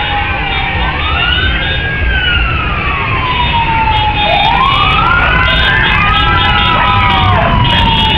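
Several vehicle sirens wailing at once, their slow rising and falling pitches overlapping, over a low rumble.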